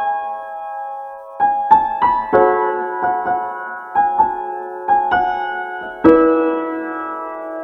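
Slow, sad piano music: single struck notes and chords that ring and fade, with a pause of over a second near the start and a held chord about six seconds in.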